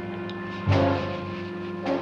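Tense orchestral background score: held notes, then a sudden loud low accent about two-thirds of a second in.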